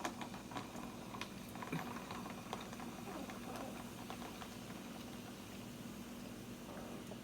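Quiet room tone with a faint steady hum and a few soft, scattered clicks.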